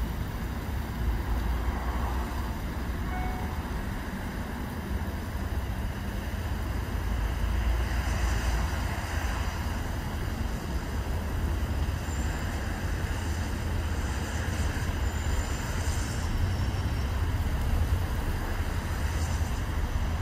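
A passenger tour boat's engine running with a low, steady rumble as the boat comes in slowly to the quay.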